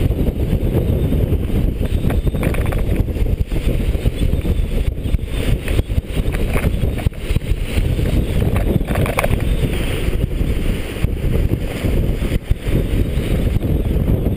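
Loud wind buffeting the microphone over the rush and splash of water breaking along the hull of a sailboat heeled over and moving fast under sail.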